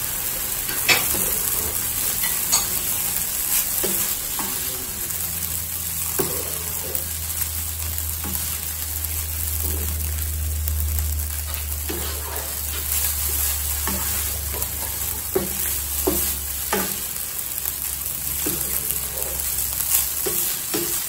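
Rice frying in a nonstick pan with a steady sizzle, while a wooden spatula stirs and turns it, scraping and tapping on the pan every second or so.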